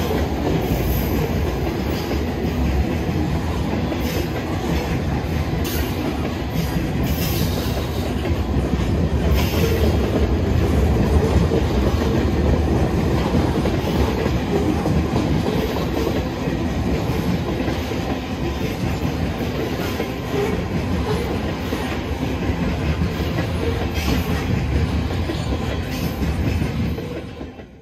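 Freight cars of a manifest freight train rolling past: a steady rumble with the clickety-clack of wheels over rail joints, and a few brief high-pitched wheel squeals in the first ten seconds. The sound cuts off abruptly at the very end.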